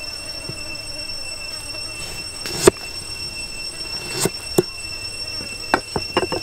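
A kitchen knife cutting a lime against a wooden chopping block, giving about six sharp knocks. The loudest comes about two and a half seconds in, and a quick run of three cuts comes near the end. A steady high-pitched drone runs behind them.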